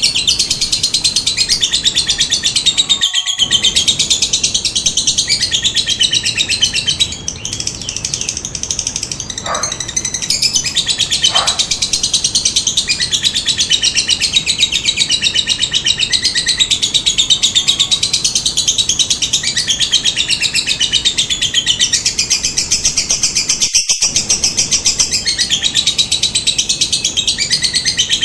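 Lovebird chattering in a long, fast, unbroken high trill, the drawn-out 'ngekek' song that keepers play to set other lovebirds calling.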